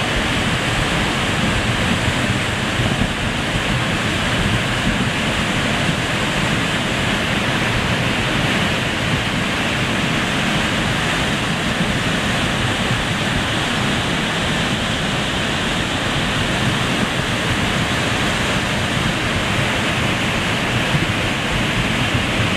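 Creek in flood, a fast muddy torrent rushing and churning over its washed-out bank: a loud, steady rushing of water.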